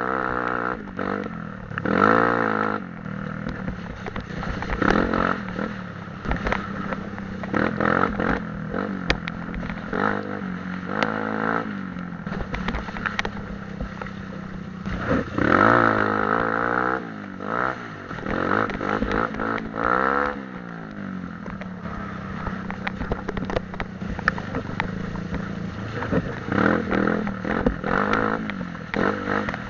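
Off-road dirt bike engine being ridden hard, revving up and dropping back over and over through the gears, with rattling and clattering from the bike over rough ground.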